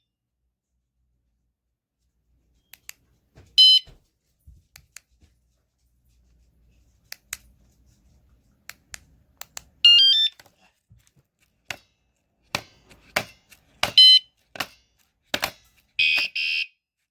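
Motorcycle vibration alarm giving short electronic chirps, each a quick run of stepped tones, about four of them several seconds apart, with scattered small clicks and taps in between.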